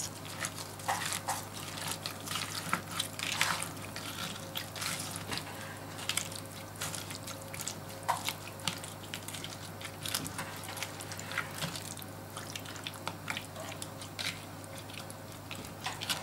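Wet squelches and small irregular splashes of marinade as a hand presses and mixes pieces of daikon radish in a plastic tub of brine.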